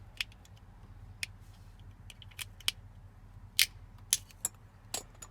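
Plastic retaining clips of a BMW E92 push start button assembly being pried and released: a series of about eight sharp, irregular plastic clicks and snaps, the loudest about three and a half seconds in.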